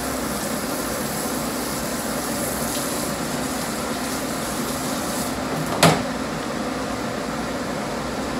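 Steady rushing noise with a faint hum running underneath, broken by one sharp knock about six seconds in.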